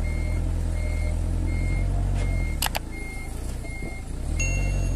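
Forklift engine running with its reversing beeper sounding short, evenly spaced beeps, about one and a half a second. The engine's low rumble swells and eases. There are two sharp clicks about halfway through and a brief higher tone near the end.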